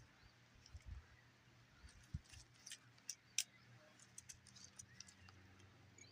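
Faint, scattered metallic clicks and clinks of a steel roller chain being flexed by hand.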